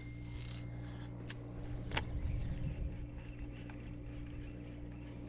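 Electric trolling motor humming steadily at a constant pitch, with two short sharp clicks about one and two seconds in.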